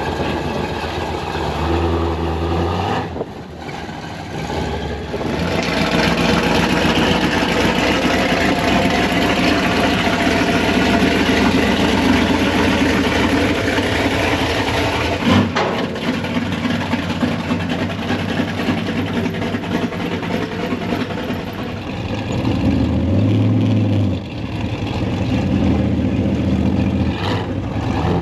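A motor vehicle engine running steadily, its note shifting a few times.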